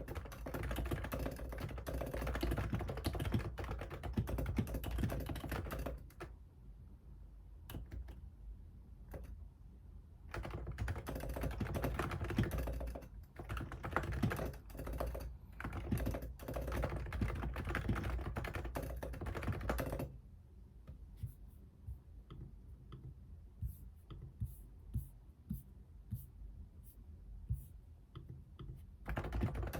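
Computer keyboard being typed on: fast runs of keystrokes that twice slow to scattered single key presses, once about six to ten seconds in and again from about twenty seconds in until near the end.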